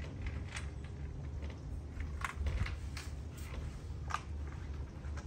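ARB Touring retractable awning being handled and rolled up: a few short, light clicks and knocks from its frame and canvas, over a steady low rumble.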